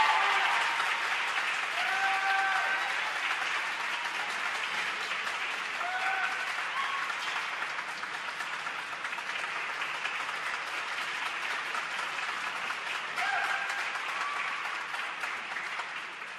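Audience applauding, with a few brief shouted cheers; the clapping slowly fades toward the end.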